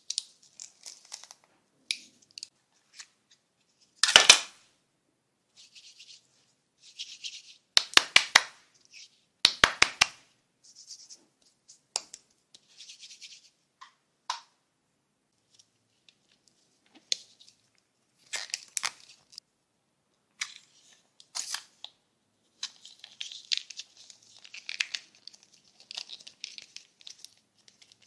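Glitter kinetic sand being pressed and scraped into a hinged plastic toy mold by hand: intermittent crackly scratching and rustling, broken by several loud, sharp clicks of the plastic.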